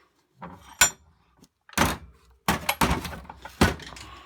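Metal clinks and knocks from handling a cast iron Record No. 110 bench vise: a bright ringing clink about a second in, then a heavier knock and a run of clunks in the second half.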